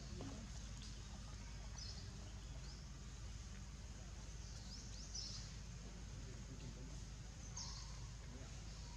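Outdoor ambience: a steady low rumble with a few short, high-pitched chirps, about five in all, spaced one to three seconds apart.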